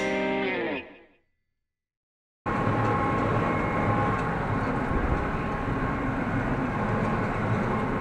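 Guitar music fading out in the first second, then a brief silence, then the steady running sound of a Massey Ferguson 6150 tractor pulling a Welger AP53 small-square baler, heard from inside the cab, with a faint steady whine over a low rumble.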